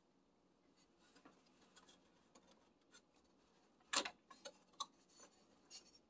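Faint rubbing and small clicks of a DDR3 memory module being worked out of its motherboard slot by hand, with one sharper click about four seconds in and a few lighter clicks after it.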